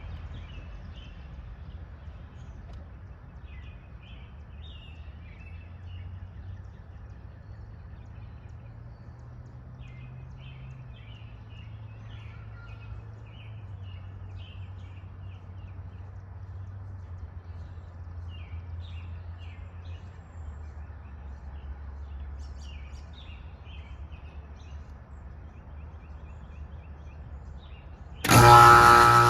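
Small birds chirping over a low, steady outdoor rumble. Near the end a loud machine noise with a steady hum starts suddenly.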